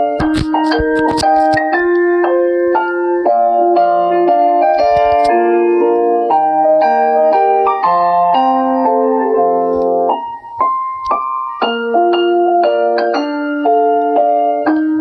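Phone ringtone melody played in an electric-piano voice as a run of separate notes. It breaks off briefly just after ten seconds in, and then the notes start again.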